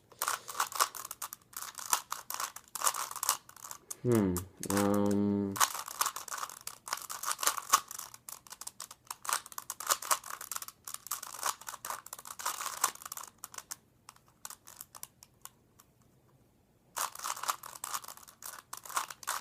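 Plastic 3x3 Rubik's Cube being turned quickly by hand: a dense run of clicks and rattles from the layers snapping round. A brief voice breaks in about four seconds in, and the turning stops for about three seconds near the end before starting again.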